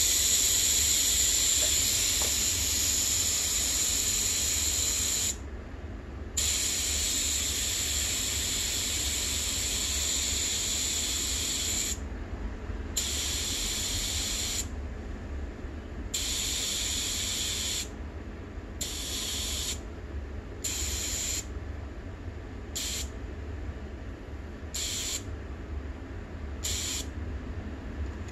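Compressed air hissing through a tire inflator gun into a freshly mounted dirt bike rear tire: two long blasts of several seconds, then a run of ever shorter squirts as the tire is topped up toward pressure.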